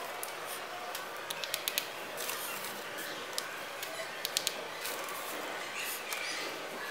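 Scattered light clicks and taps from handling things on a tiled counter, several in quick succession twice, over a steady background hiss.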